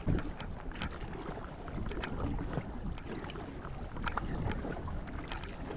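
Kayak being paddled upstream on a river in the wind: rushing water and wind on the microphone, with scattered sharp clicks and splashes from the paddle and hull.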